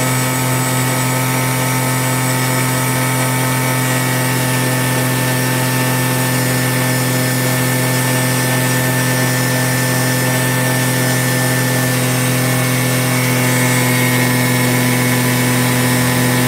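Scooter engine held at steady high revs during a stationary burnout, the rear tyre spinning and smoking against the floor. It makes a loud, unbroken drone that grows slightly louder after about thirteen seconds.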